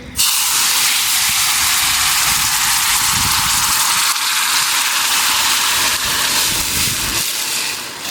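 Food frying in a hot pan: a loud, steady sizzling hiss that starts suddenly and eases near the end.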